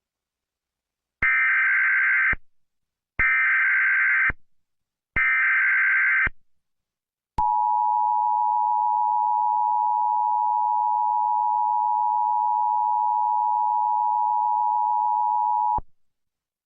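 Emergency Alert System tones: three one-second bursts of the SAME digital header, a second apart, then the steady two-tone attention signal held for about eight seconds before it cuts off.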